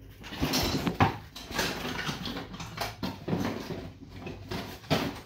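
Someone rummaging through a box of parts: irregular rustling and handling noise with a few sharp knocks, notably about a second in and near the end.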